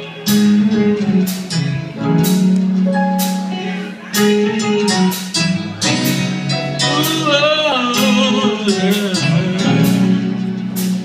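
Live gospel band music: sustained low chords under regular drum and cymbal hits, with a voice held in vibrato about seven seconds in.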